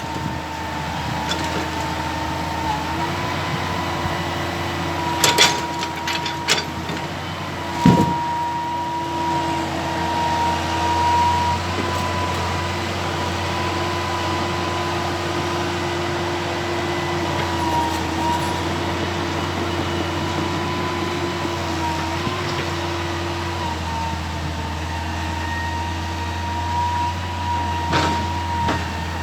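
Excavator running steadily with a constant whine over its engine hum, broken by a few sharp knocks, the loudest about eight seconds in.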